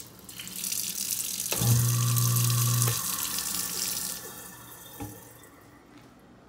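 Kitchen faucet running into a stainless steel sink: the water comes on with a click, runs strongest for about a second and a half with a steady low hum alongside, then is shut off about four seconds in. A short click follows about a second later.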